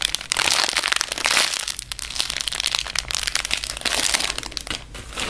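Plastic packaging bags crinkling and crackling irregularly as squishy toys are handled.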